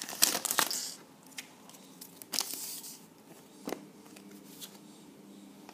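Plastic booster-pack wrapper crinkling and tearing as it is pulled open, a dense run of crackles in the first second. After that, a few faint separate crinkles and clicks as cards are handled.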